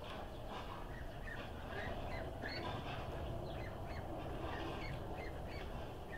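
Ducklings peeping: many short, high chirps a few each second, over a steady low rumble.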